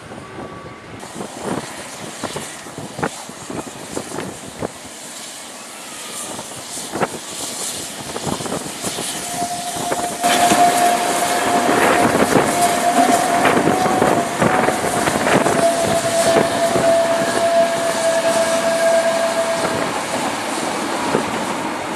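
A narrow-gauge steam tank locomotive hauling vintage carriages past, with a steady clatter of clicks and knocks from wheels over rail joints and points that grows louder about halfway through. A long, steady high squeal sounds from the passing train for about ten seconds in the middle.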